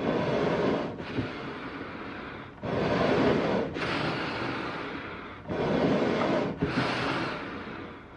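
Eerie, heavy animal breathing as a sound effect: three slow breath cycles. Each cycle is a louder breath of about a second followed by a longer one that fades away.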